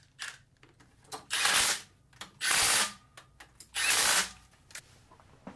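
Milwaukee cordless impact driver running in three short bursts, about half a second each, snugging down the nuts that hold the PTO shaft hub to the flywheel.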